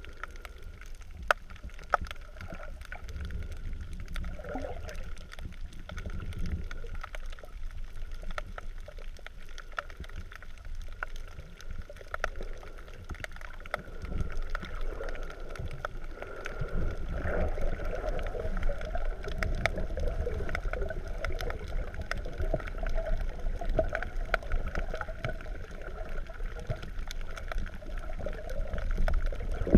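Muffled underwater sound from a GoPro inside its waterproof housing: a low rumble of water movement with scattered sharp clicks and a thin steady whine. It grows louder and busier from about halfway through.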